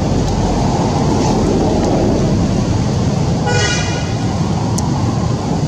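Loud steady outdoor rumble, with a brief high-pitched toot about three and a half seconds in.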